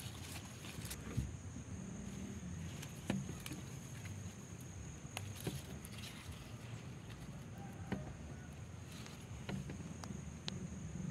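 Outdoor field ambience: a steady high, thin hum under a low rumble, with a few single light clicks and rustles scattered through.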